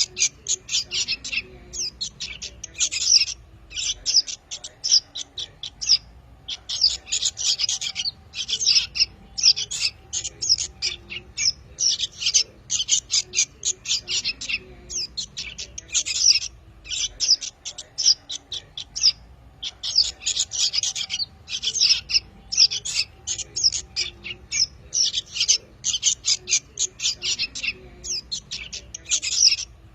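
Young songbirds, a lure recording of fledgling prinias, sooty-headed bulbuls and yellow-vented bulbuls, chirping rapidly and almost without a break, high-pitched, with short pauses every few seconds.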